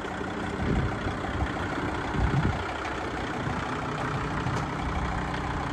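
Kubota L5450 tractor's diesel engine idling steadily, with a couple of brief low surges in the first few seconds.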